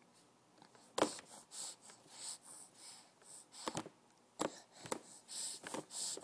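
A baby's short, breathy bursts of breathing between mouthfuls of squash, with a few sharp clicks, the loudest about a second in.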